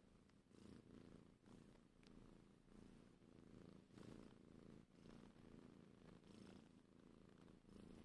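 Domestic tabby-and-white cat purring softly at close range, the purr swelling and fading about once a second as it breathes in and out.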